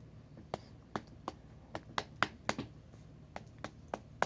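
Hands patting and pressing kinetic sand into a ball: about a dozen sharp, irregular slaps and clicks.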